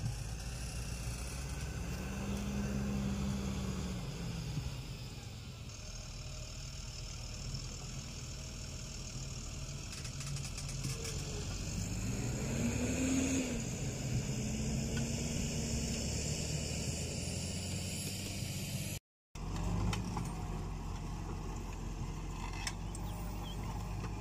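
Fendt 930 tractor's diesel engine running under load while pulling a four-furrow plough, its pitch rising and falling a few times. The sound breaks off for a split second about three-quarters of the way through.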